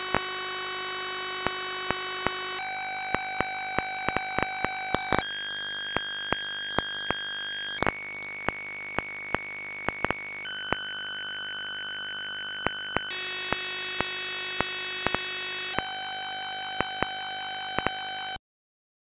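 ZX Spectrum beeper playing the sound of a 32-byte intro: a buzzy square-wave tone that jumps to a new pitch about every two and a half seconds, with clicks scattered through it. It cuts off suddenly near the end.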